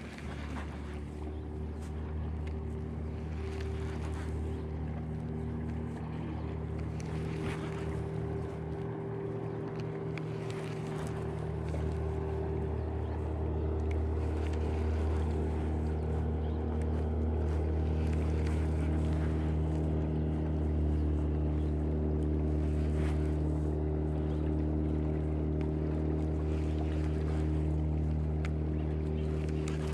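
Steady low hum of a motorboat engine running on the water, growing slowly louder, with a brief dip partway through.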